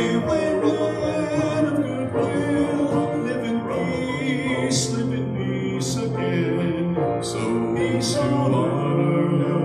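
A man singing a solo into a microphone over piano accompaniment, holding long notes with a wavering vibrato.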